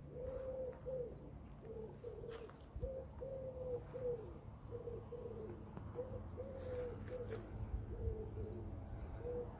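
A pigeon cooing over and over in a steady run of short, low coos, some dipping in pitch at their ends.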